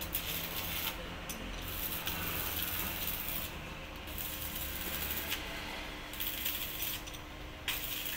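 Irregular metallic clicking and clinking of small metal parts and a hand tool being worked by hand under a bus, over a steady low hum.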